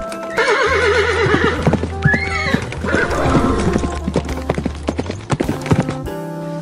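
An animal's long, quavering call that falls in pitch, a shorter call about two seconds in, then a quick run of sharp clicks. Soft background music plays under it.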